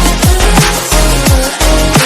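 Background electronic dance music with heavy bass and a fast, steady beat, its bass notes sweeping down about twice a second.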